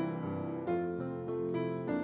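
Grand piano played solo: slow, quiet chords, a new one struck roughly every half to three-quarters of a second and left ringing.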